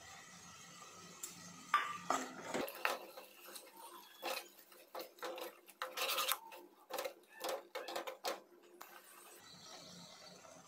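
Steel ladle scraping and clinking against a nonstick pot as a thick ground paste is stirred into the gravy, in irregular strokes. The stirring starts about two seconds in and stops about two seconds before the end.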